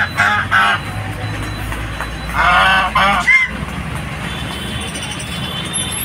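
Domestic geese honking in short loud calls: a quick run of honks at the start and two more about two and a half seconds in, over a steady low background din.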